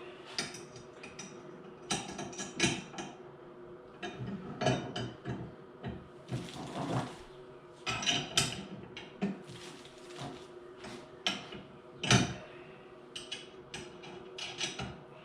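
Lawn roller parts and bolt hardware being handled and fitted together during assembly: irregular clanks, clicks and short scrapes, with one louder knock about twelve seconds in.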